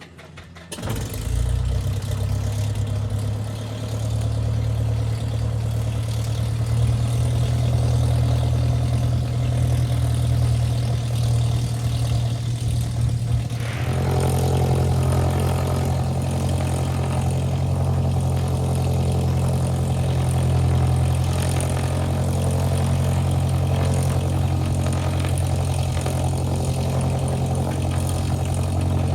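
Cessna 172 piston engine and propeller starting up about a second in, then running steadily at idle. About halfway through, the engine note steps to a slightly different pitch as the rpm changes.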